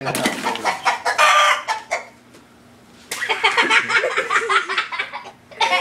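Rooster calling: a run of calls for about two seconds, a short pause, then another long run of calls.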